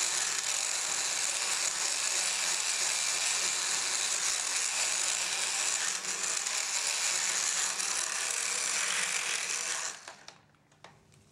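Motorized equine dental float grinding down horse molar teeth, a steady high grinding whine as sharp enamel points are beveled off. It stops suddenly about ten seconds in, leaving a few light clicks.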